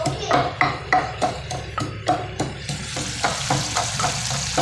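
A spoon stirring food in a cooking pot, knocking against the pot about three times a second. A sizzling hiss of frying comes in about three seconds in.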